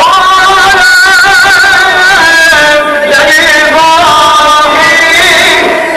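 Men singing a naat, an Islamic devotional hymn, loudly into microphones, in long held notes with wavering ornaments.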